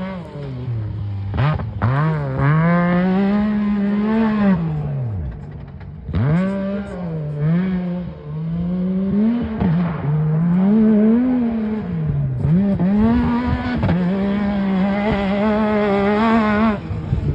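Yamaha YXZ1000R's three-cylinder engine through a Weller racing exhaust, revving hard on a short course. Its pitch climbs and drops again and again with the throttle and gear changes, and it fades briefly twice near the middle.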